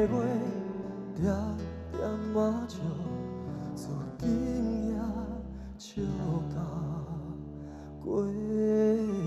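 Live ballad: a male singer holding long notes with vibrato over band accompaniment, in several phrases with short dips between them.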